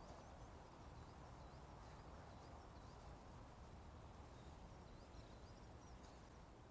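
Near silence: faint outdoor ambience with a low, steady background noise and a few faint, high bird chirps scattered through.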